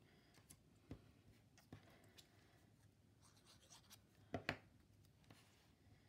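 Faint handling of small cardstock paper pieces on a tabletop: light rubs and scattered small taps, with a sharper double tap about four and a half seconds in.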